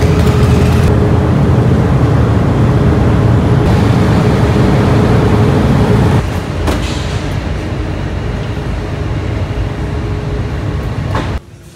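Motorcycle engines and the ferry's machinery rumbling on the car deck during vehicle loading, over a steady hum. The rumble drops suddenly about six seconds in and falls away near the end.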